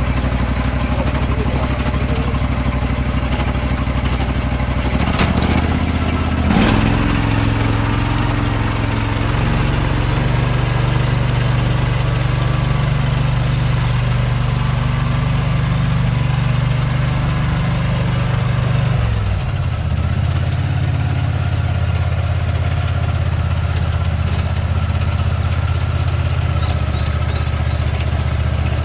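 The small engine of an Iseki "Ai-saika" riding crop-management machine runs steadily. Its speed rises about nine seconds in and drops back about nineteen seconds in, and there are two sharp clanks around five to seven seconds in.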